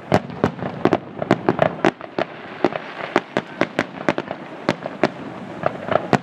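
Fireworks display: aerial shells bursting in a rapid, irregular run of sharp bangs, several a second.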